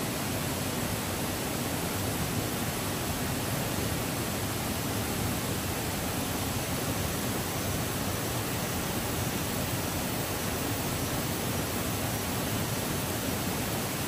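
Waterfall rushing in a steady, unbroken hiss of falling water.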